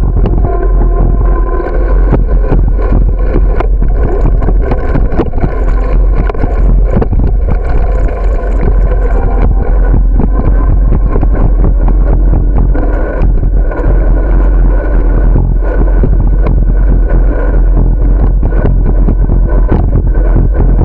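Wind buffeting the microphone of a camera carried on a moving bicycle: a loud, constant rumble, with frequent knocks and rattles as the bike rolls over the concrete sidewalk.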